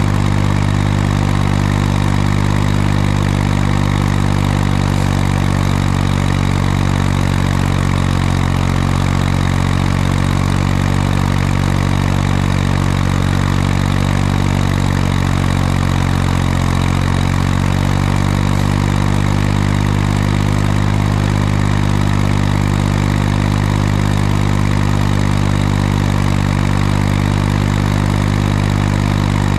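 Ursus C-360 tractor's four-cylinder diesel engine running steadily and loud. Its pitch sags slightly about halfway through, then comes back up.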